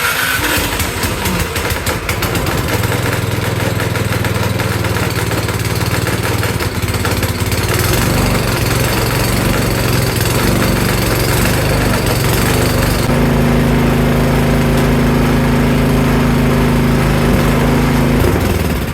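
A Cub Cadet 524 snowblower's single-cylinder engine, just started on choke after a carburetor cleaning, runs steadily. Its note changes about 13 seconds in, and it winds down at the very end.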